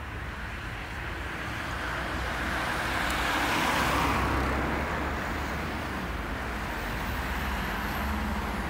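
Road traffic: a car passes close by, its tyre and engine noise swelling to a peak about four seconds in and then fading, over a steady low rumble of traffic.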